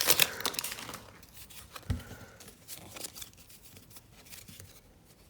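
A trading-card pack wrapper being torn open and crinkled, loudest in the first second. Quieter rustling of the cards being handled follows, with a soft thump about two seconds in.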